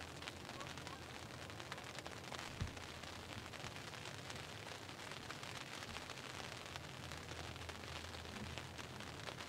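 Rain pattering steadily on the fabric of a ground blind, a fine continuous hiss with many small ticks. A single dull thump comes about two and a half seconds in.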